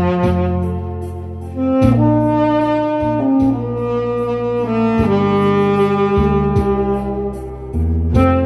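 Tenor saxophone playing a slow song melody in long held notes over a backing track with bass and a steady drum beat.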